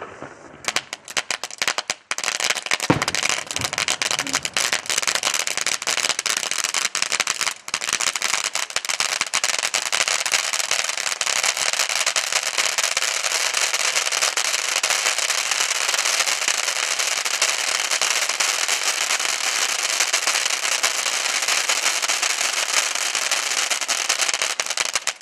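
A firework (the PC446 item) going off with dense, continuous crackling that starts about a second in and keeps on. There is one low thump about three seconds in.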